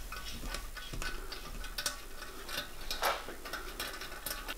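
A small 7 BA tap in a cube-type tap wrench, turned by hand to cut threads in a copper boiler backplate: irregular small metallic clicks and ticks, with one sharper click about three seconds in.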